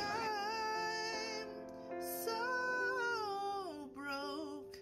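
Background music: a song with a woman's singing voice carrying a melody that glides between notes over held accompaniment notes.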